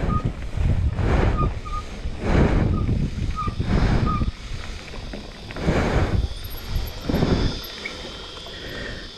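Wind buffeting the microphone in repeated swells while riding a Canyon Spectral 29 mountain bike along a dirt trail, mixed with rumble from the tyres and bike over the ground.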